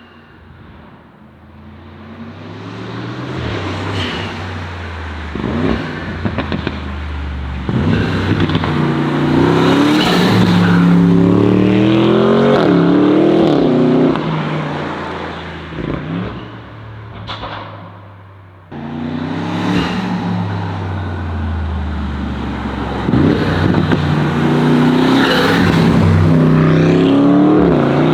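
Audi RS6 C8's heavily tuned twin-turbo V8 with an aftermarket exhaust pulling hard through the gears, the engine note climbing and dropping back at each upshift. It eases off about fourteen seconds in, then a second hard acceleration with upshifts starts abruptly near nineteen seconds.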